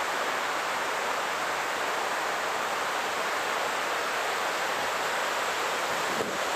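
Water falling down the walls of the 9/11 Memorial's reflecting pool into the basin: a steady, even rush of cascading water.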